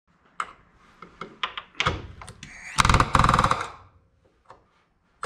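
Scattered clicks and knocks of metal parts being handled on a wooden jig. About three seconds in, a hose-fed pneumatic hand tool runs loudly for under a second.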